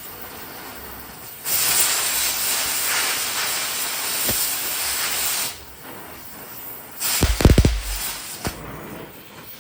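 Gas cutting torch hissing loudly for about four seconds, then a short rumbling burst with a few sharp clicks near the end.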